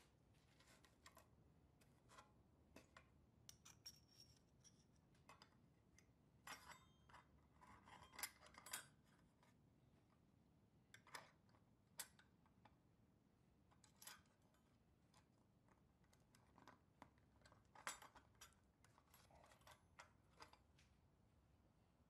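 Small nickel-plated steel parts of a 1954 Tonka toy trailer being handled and fitted together by hand: hinge plates, a pin and a nut clicking and clinking against each other and the bracket. The clicks are light and irregular, with the loudest ones in the middle.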